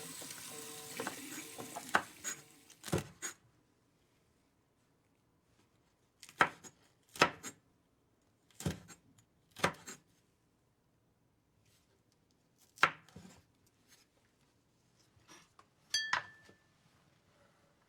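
Kitchenware being handled: separate sharp knocks and clinks a second or more apart, one near the end ringing briefly like struck crockery.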